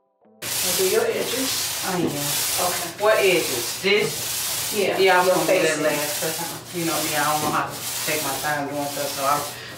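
Small paint roller pushed back and forth over a wet-painted tabletop: a loud, rasping rub that starts about half a second in and breaks briefly at each turn of the stroke, roughly once a second.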